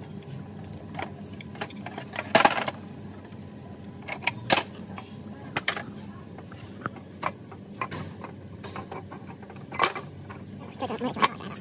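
Scattered metallic clicks, clinks and knocks as a car differential is taken apart: a hand tool on the housing bolts and the aluminium housing and parts knocking against each other and the metal drain pan. The loudest clank comes a little over two seconds in.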